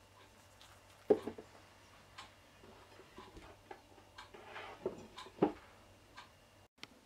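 Light knocks and clicks of kitchen items being handled on a wooden board, with two sharper knocks about a second in and about five and a half seconds in.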